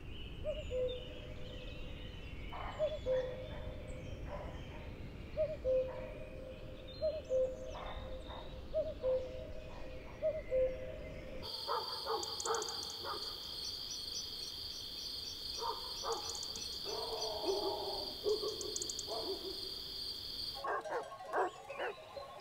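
Outdoor wildlife ambience. First an owl's short hoots, repeated about once a second over a low rumble. About halfway through it changes to a steady high-pitched trill with scattered lower animal calls.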